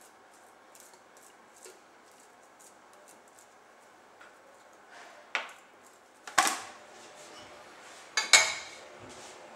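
Wire roasting rack clanking in a glass roasting dish as a whole raw chicken is set onto it: a knock about five seconds in, then a louder ringing clank and two quick ringing clinks near the end.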